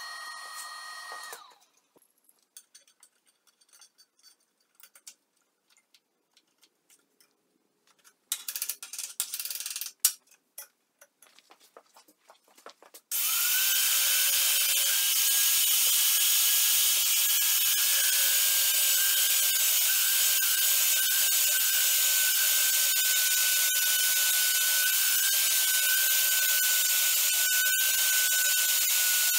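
A magnetic-base drill press boring through a stack of tacked-together steel flat bar; its motor starts a little before halfway and runs steadily with a high whine. Before that, a MIG welder's brief tack at the start, then scattered clicks and knocks.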